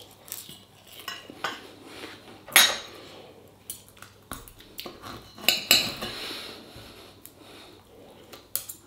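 Steel knife and fork clinking and scraping on a ceramic plate as a sausage is cut, in a string of short sharp strokes.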